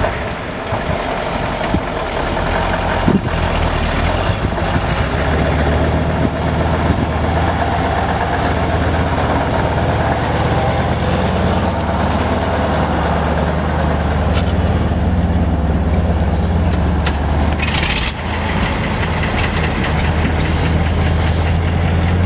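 Heavy diesel dump-truck engines running steadily with a low, even drone. About eighteen seconds in there is a short hiss and a brief break before the drone carries on.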